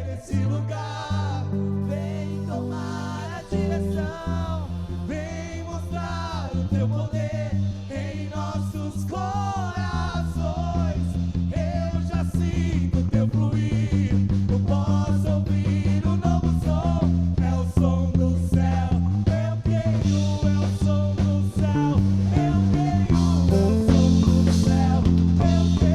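Worship band playing a song, with the electric bass up front under drums, guitar and singing. The band builds and gets steadily louder toward the end.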